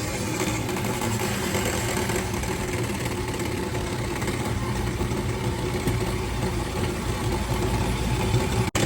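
A diesel engine running steadily at idle, with a brief sudden cut-out near the end.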